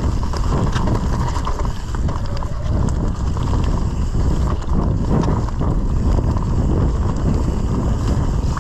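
Electric mountain bike riding fast down a dirt trail: wind buffets the microphone over a steady rumble of tyres on dirt, with scattered knocks and rattles from the bike over bumps.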